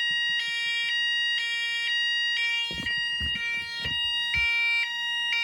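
Fire alarm set off by a Notifier pull station, sounding an electronic tone that switches back and forth between two pitches about once a second. A few low knocks are heard in the middle.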